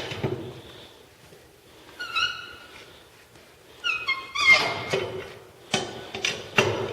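Tire iron working the lug nuts on a 1949 Chevy's rear wheel, tightening them, with several sharp metal clanks in the second half. Two short high squeals come about two and four seconds in.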